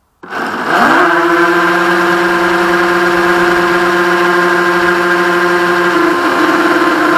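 Reely Wavebreaker RC speedboat's electric motor spinning up from rest, rising quickly to a steady high whine at full throttle. Near the end the pitch wavers briefly before it steadies again.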